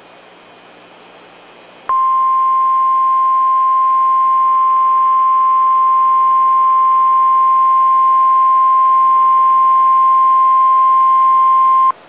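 Emergency Alert System attention tone heralding a tornado emergency alert: a single steady, loud, high-pitched tone that starts about two seconds in, is held for about ten seconds and cuts off abruptly. It comes after a short stretch of faint hiss.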